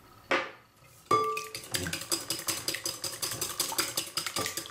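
Wire whisk beating egg with salt in a glass mixing bowl: fast, even clinking of the wires against the glass, starting about a second in and stopping just before the end.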